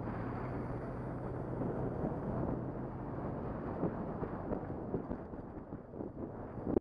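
Motorcycle engine running as the bike rides over a gravel road, with wind noise on the microphone and a few knocks and rattles in the second half, the loudest near the end.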